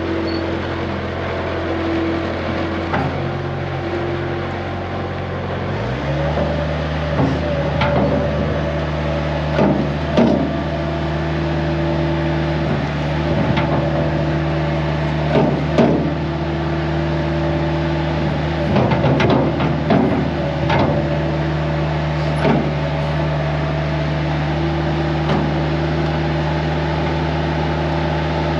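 Skid steer's diesel engine running steadily, stepping up to a higher, steady speed about six seconds in, with scattered clanks and knocks over it.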